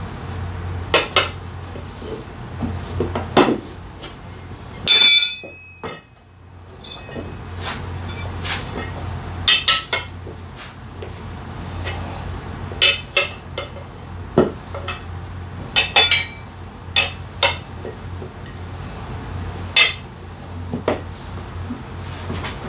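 Steel tire lever and metal tools clinking and knocking against an aluminium motorcycle rim while a tire is levered over the rim by hand, in irregular short strikes. About five seconds in comes one loud ringing metallic clang. A steady low hum runs underneath.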